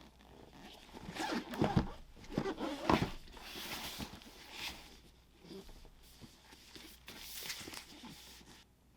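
Hands handling sneaker packaging: irregular rustling and crinkling, with two soft thumps about two and three seconds in.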